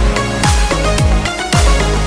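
Electronic background music with a heavy beat: bass hits that slide down in pitch about twice a second under drums and held synth chords.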